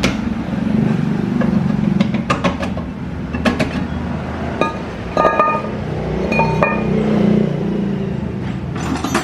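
Metal tools and parts clinking now and then, about half a dozen sharp strikes that ring briefly, over a steady low hum.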